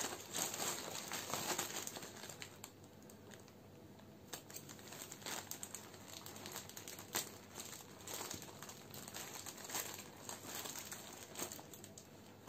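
Packaging crinkling and rustling as a packet holding a white fabric photo backdrop is opened and the cloth handled, with scattered short crackles; busiest in the first two seconds, then sparser.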